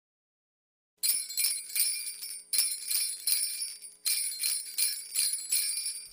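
Jingle bells shaken in a steady rhythm, starting about a second in and pausing briefly twice, as the recorded intro of a Christmas song.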